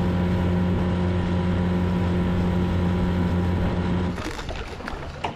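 Outboard motor on a small boat running at a steady speed: a low, even hum whose pitch does not change, fading away about four seconds in.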